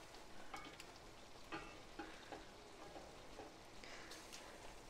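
Faint stirring of fusilli through simmering bolognese sauce with a silicone spatula in a stainless steel pan: scattered soft clicks of the spatula and pasta over a low sizzle, as the pasta finishes cooking in the sauce.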